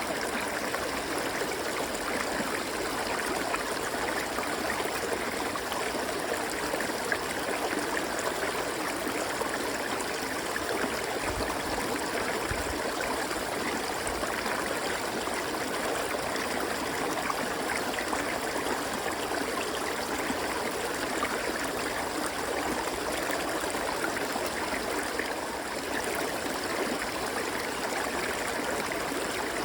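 River water flowing over rocks, a steady rushing and gurgling with no breaks.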